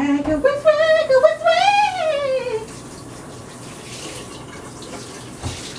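A woman's drawn-out, wavering voice for the first two and a half seconds, then a kitchen faucet running steadily, likely to wet a rag for cleaning.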